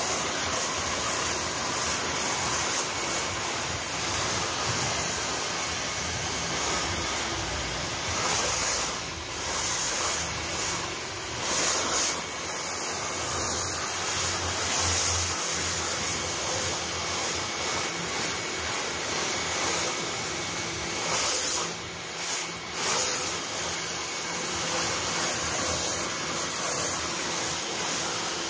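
Pressure washer running, its water jet hissing steadily against styrofoam hydroponic panels as it strips off grime and algae, with a few swells and dips in loudness as the spray moves.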